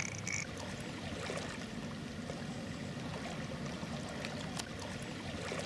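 Small waves lapping gently at a reservoir's concrete bank, a steady low wash of water.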